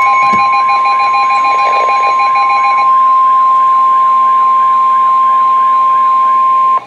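NOAA Weather Radio 1050 Hz warning alarm tone: one loud, steady, high pitched tone that signals a warning broadcast is about to follow. It stops abruptly near the end, and a fainter warbling tone runs beneath it for most of its length.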